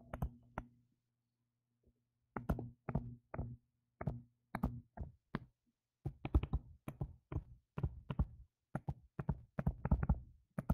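A stylus tip tapping and clicking on a touchscreen as words are handwritten. The taps are irregular, several a second, coming in clusters, with a pause of about a second and a half near the start.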